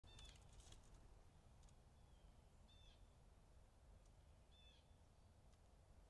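Faint short bird calls, three of them a couple of seconds apart, over a near-silent outdoor background, with a few faint clicks in the first second.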